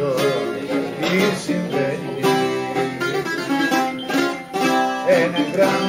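Dance music led by plucked string instruments, playing a quick melody over a regular strummed beat.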